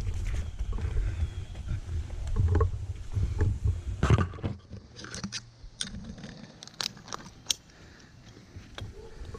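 Low rumbling handling or wind noise on the microphone for about four seconds, then a handful of sharp clicks and clinks from metal climbing hardware on the rope.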